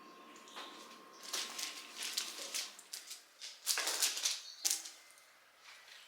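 Leafy flower stems and foliage rustling in bursts as they are handled and pushed into a floral centerpiece.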